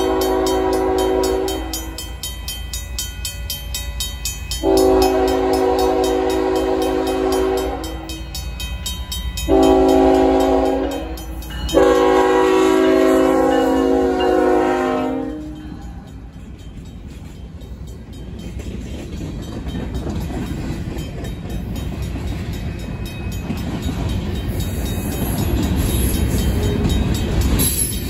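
A Union Pacific GE C45AH locomotive's horn sounds the grade-crossing signal: the end of a long blast, then long, short, long, over the steady ringing of the crossing's RACO mechanical bell. After about fifteen seconds the horn stops, and the locomotive and the freight cars behind it rumble past with wheel noise on the rails, growing louder near the end.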